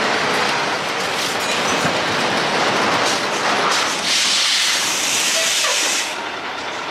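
Semi-truck braking to a stop: a dense mechanical rumble and rattle, then a loud hiss of air from its air brakes about four seconds in that lasts some two seconds and cuts off.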